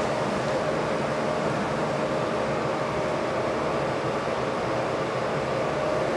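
Steady machinery hum and hiss with a faint steady tone running through it.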